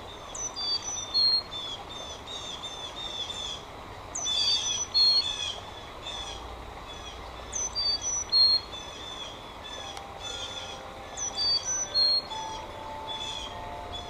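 Carolina chickadees calling: a high 'chick-a-dee-dee-dee' call repeating about every three and a half seconds, with a string of 'dee' notes running between the calls.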